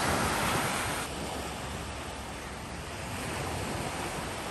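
Sea waves washing in, with wind buffeting the microphone; the wash is louder at first, eases after about a second and builds again near the end.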